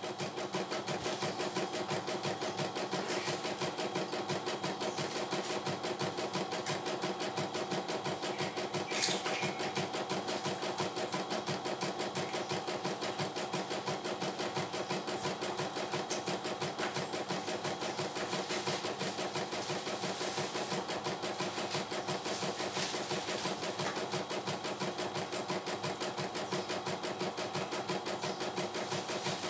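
CNY E900 computerised embroidery machine stitching a design: a steady, fast, even needle clatter as the hoop shifts the fabric, with one short click about nine seconds in.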